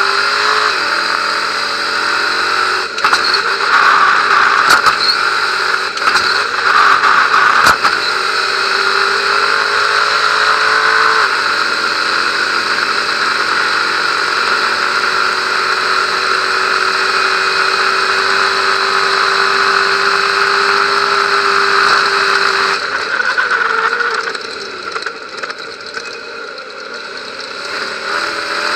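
Stadium Super Truck's V8 racing engine pulling hard under throttle, heard from inside the cab, with a steady high engine note that steps at a gear change about eleven seconds in. A few sharp knocks sound in the first eight seconds, and near the end the engine goes quieter as the throttle comes off before picking up again.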